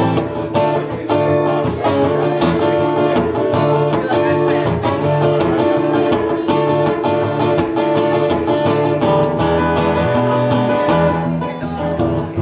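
Acoustic guitar strummed steadily in an instrumental break of a country-style song, without singing.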